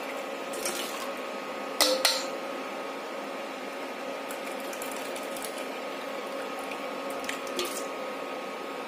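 Hot kadha being poured through a strainer, a steady liquid sound over a faint steady hum, with two sharp metal clinks about two seconds in.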